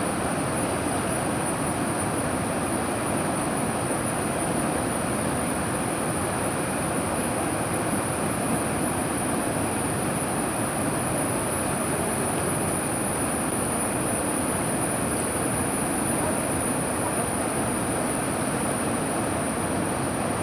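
Steady roar of a river in flood, rushing water with no let-up, under a thin constant high-pitched whine.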